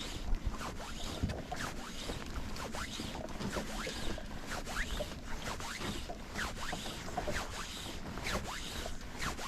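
Fly line being stripped in by hand through the rod guides, a quick series of irregular short rasps.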